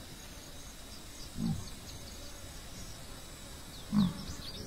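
Yellow mongoose giving two short, low grunts about two and a half seconds apart, the second louder.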